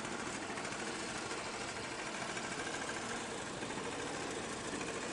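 Vyatka Elektron electric scooter's motor running with a steady, even whir.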